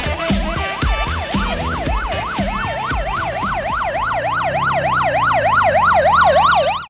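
Emergency-vehicle siren in a fast yelp, rising and falling about four times a second, growing louder toward the end and cutting off suddenly. Upbeat music with a steady beat runs under it for the first few seconds and then fades out.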